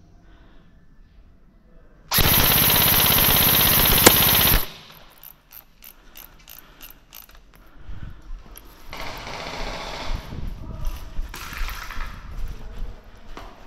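Airsoft electric rifle firing one long full-auto burst close to the microphone, its gearbox cycling rapidly. The burst starts about two seconds in and lasts about two and a half seconds.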